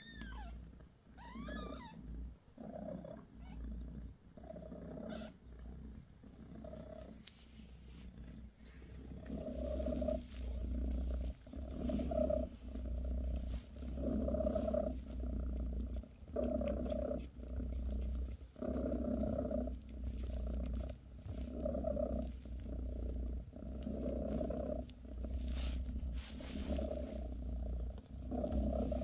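British Shorthair mother cat purring close up, the purr swelling and fading about once a second with each breath and growing louder about a third of the way in. A couple of brief high squeaks near the start.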